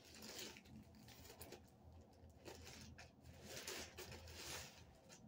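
Plastic poly mailer bag rustling and crinkling faintly as it is handled, in several short irregular bursts, with a longer stretch about three and a half to four and a half seconds in.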